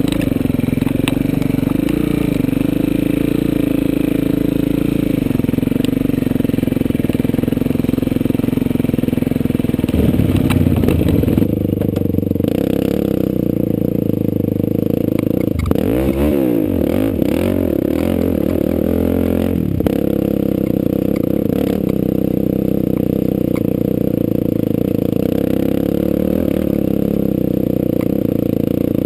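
Quad bike (ATV) engine running under load on a steep rocky climb, the revs rising and falling as the rider works the throttle, with the biggest swings in pitch about fifteen to twenty seconds in. A few sharp clicks near the start.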